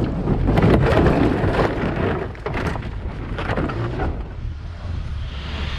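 Honda Civic hatchback driving over a rutted mud and gravel track: a low rumble of engine and tyres with irregular crackles of stones and mud under the wheels.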